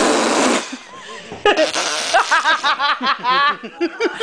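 A person blowing a wet, farting raspberry with the mouth as a sound effect, then breaking into a run of quick, high-pitched giggling laughter.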